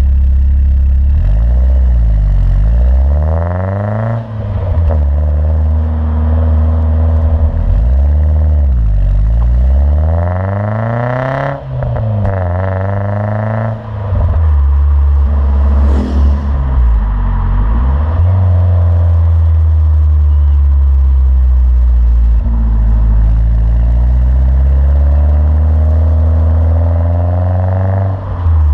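BMW Z3 1.9i's inline four-cylinder engine through a Bastuck sport exhaust with front and rear silencers, heard right at the twin tailpipes while driving. The revs climb several times in the first half, each climb ending in a brief dip and a fall in pitch. After that the engine holds a steadier pace, and near the end it rises slowly.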